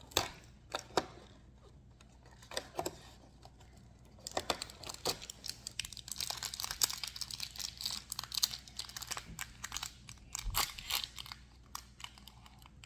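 Hands opening a mystery toy package: a few separate clicks and taps, then several seconds of rapid crinkling and tearing of the packaging.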